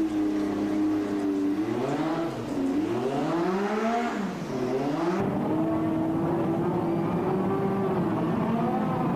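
Formula One racing car engine at high revs, its note swinging up and down several times through gear changes in the first half, then holding a steady high drone after an abrupt change about five seconds in.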